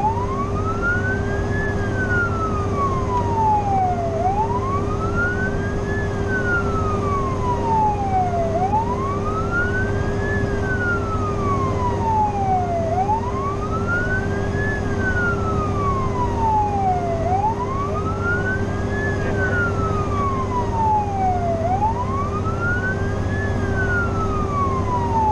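Fire engine's siren on a steady wail, heard from inside the cab. Each cycle takes about four seconds: the pitch climbs quickly, then slides slowly back down, six times over. A steady hum and the low drone of the truck run underneath.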